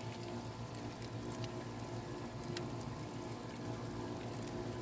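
Barbecue grill cooking a whole chicken: a steady low hum with faint bubbling and sizzling, and a couple of sharp crackles.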